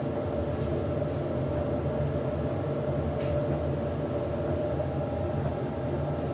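Hoover H-100 10 kg vented tumble dryer running: a steady motor hum with a constant whine over a low rumble from the turning drum.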